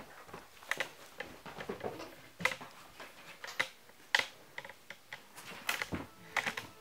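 Irregular light taps, knocks and scrapes of a baby monkey's hands and feet clambering on the edge of a cardboard box.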